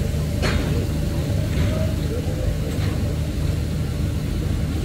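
A heavy engine running steadily with a low, even hum, with a sharp knock about half a second in and fainter knocks later.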